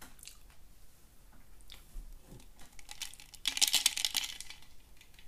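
Tall drinking glass picked up off a wooden table: a short burst of rapid clinking and rattling about three and a half seconds in, among scattered small clicks and one dull knock.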